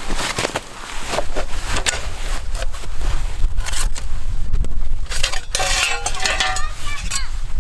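Metal cookware and utensils clinking, knocking and scraping in a string of sharp hits, some of them ringing briefly past the middle.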